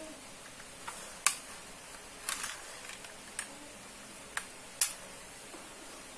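Sharp plastic clicks and taps, about seven and unevenly spaced, from the white plastic housing of a Philips Ecolink surge protector strip being handled while it is taken apart. The loudest come about a second and a quarter in and just before five seconds.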